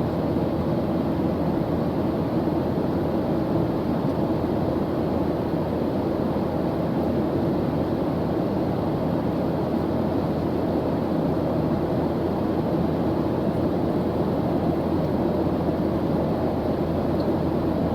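Airplane engine noise: a steady, even low drone of hiss with most of its weight in the low and middle range, unchanging throughout.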